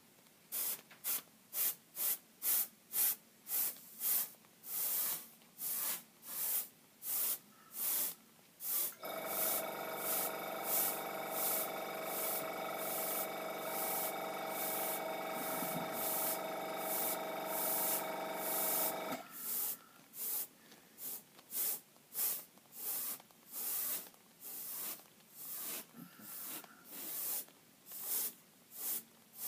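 Gravity-feed airbrush spraying paint in short hissing bursts of air, about two a second. For about ten seconds in the middle a steady machine hum with a whine runs beneath the bursts.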